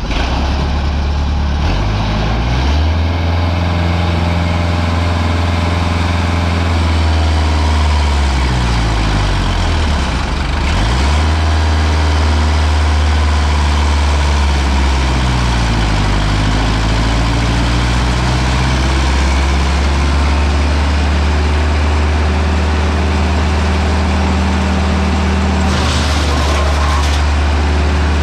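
Diesel engine of a wood chipper running steadily. Its speed sags and picks back up twice, around ten and sixteen seconds in, and a short hiss comes near the end.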